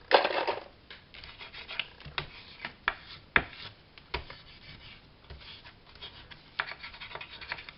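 Paper being handled and rubbed down by hand on a craft folder: a brief rustle at the start, then scattered light taps and ticks.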